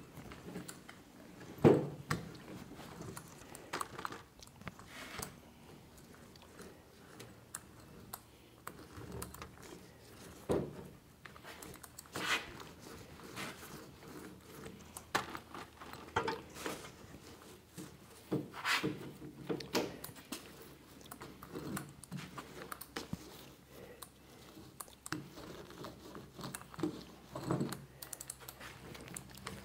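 Irregular soft clicks, scrapes and sticky crackling of a small roller working laminating resin into a fiberglass trunk lid, with the plastic paint tray handled now and then; a sharper knock about two seconds in.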